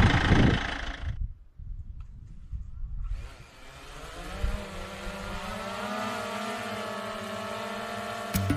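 Motorhome engine running. It is loud at first and cuts down sharply about a second in. From about three seconds in it is heard again more quietly as a steady hum whose pitch rises a little and then holds. The odd noise from the night before, which the owner put down to dust on the belt, is gone.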